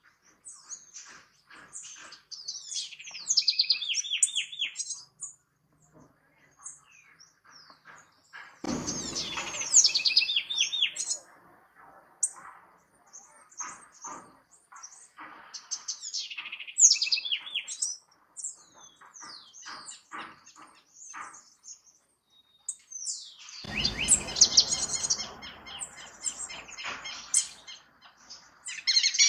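House wren (Troglodytes aedon) singing: about four bursts of rapid trills and falling notes, with scattered short chirps between them. A low rushing noise sits under two of the songs.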